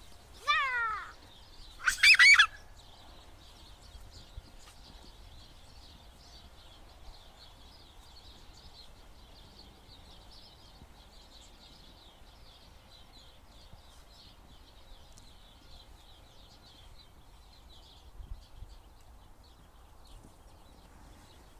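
A toddler's high squeal sliding down in pitch, then a louder, shrill shriek about two seconds in. After that, only faint high chirping in the background.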